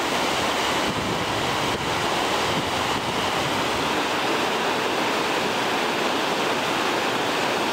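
Whitewater rapid rushing over and around boulders, heard close up as a steady, unbroken rush.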